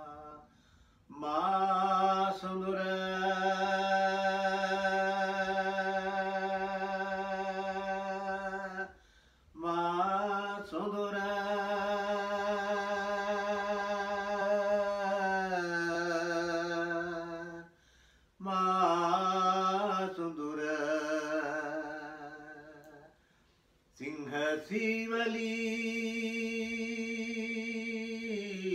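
Unaccompanied singing voice holding long, drawn-out notes in a chant-like style, in four phrases with short breaks for breath between them.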